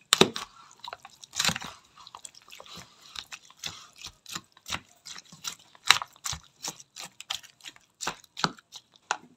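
Metal spoon stirring wet raw fish and chopped vegetables in a plastic container: irregular soft wet clicks and squelches. The sharpest knocks come right at the start and about six seconds in.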